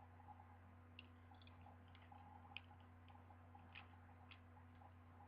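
Faint, scattered clicks of plastic Rubik's Cube pieces being pressed back into place, over a low steady hum.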